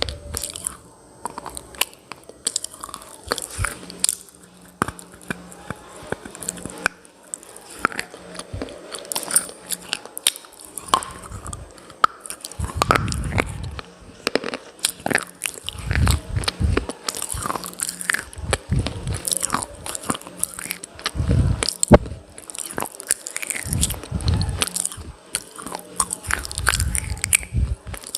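A person biting and chewing brittle clay pieces close to the microphone: many sharp crunches and snaps, with heavier chewing thuds in the second half.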